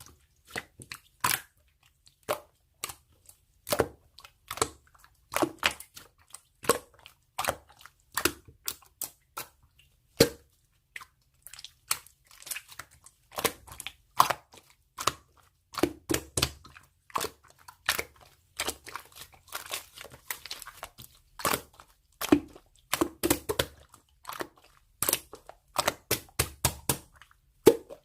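Crinkly material being handled close up: a steady run of irregular crinkles, crackles and small taps, with now and then a short tearing sound.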